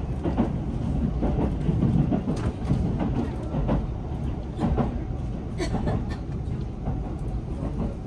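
A JR Central 373 series electric limited-express train running, heard from inside the passenger car: a steady low rumble with irregular clicks and knocks from the wheels on the track.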